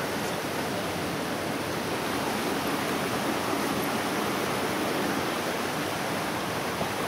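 Steady rush of running creek water.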